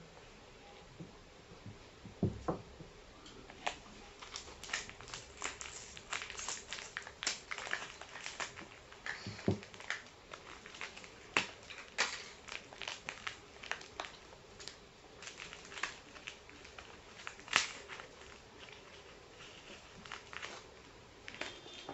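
Plastic biscuit wrapper of an Oreo packet crinkling and crackling as it is handled and cut open with scissors. There are many short, irregular crackles, thickest from about four seconds in.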